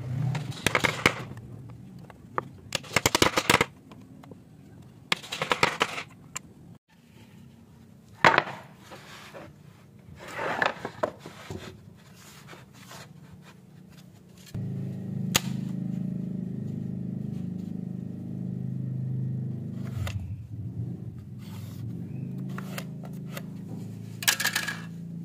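Wooden blocks and boards knocking and scraping as they are handled on a workbench, in short clattering bursts. A steady low hum comes in about halfway through and carries on underneath a few light knocks.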